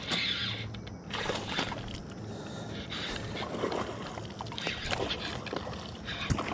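Hooked largemouth bass splashing and sloshing at the water's surface near the bank in irregular bursts as it is reeled in on a baitcasting reel.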